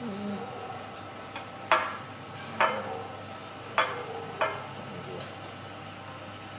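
Four sharp clinks of dishes knocked on a tabletop, each ringing briefly, spread over about three seconds, the first the loudest.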